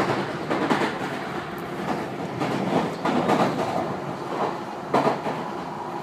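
Tobu 50090-series electric train heard from inside the car while running: a steady rumble with irregular clacks of the wheels over rail joints.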